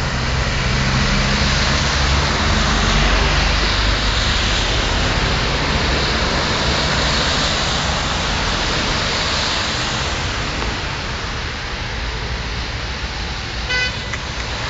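Traffic on a flooded street: a steady wash of water and tyre noise with engine hum from passing cars, and a brief car horn toot near the end.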